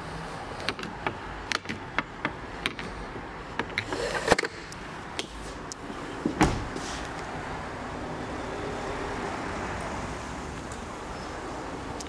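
Series of sharp clicks and rattles from the Ford S-Max's rear side-window sunblind being handled, then one heavy thud of the rear door being shut about six seconds in.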